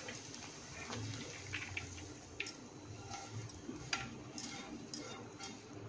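A spatula scraping and tapping against a non-stick frying pan as cooked rice is pushed out onto a plate: faint, scattered light clicks.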